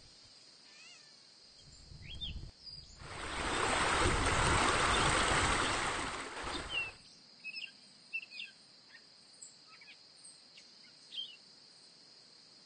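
Outdoor nature ambience: a loud rushing swell of noise builds about three seconds in and dies away by about seven seconds. Scattered short bird chirps follow over a steady high-pitched drone.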